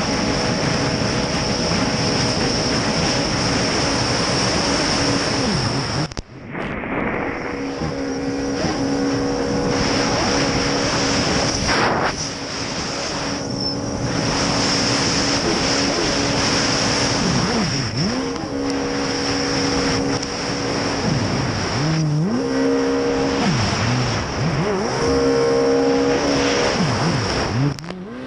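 Racing jet ski engine running at high revs under the rush of water spray and wind, heard from on board. The engine pitch falls and climbs again several times in the later part as the throttle is eased and reopened. The sound briefly drops out about six seconds in.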